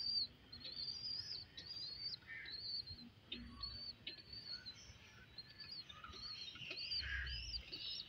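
Pigeon squabs peeping: faint, short high chirps repeated about two to three times a second, with a brief pause about five seconds in.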